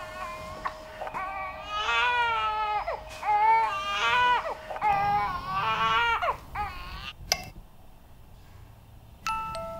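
Baby crying in repeated rising and falling wails that stop about six and a half seconds in. A single click follows, and near the end chiming tones begin.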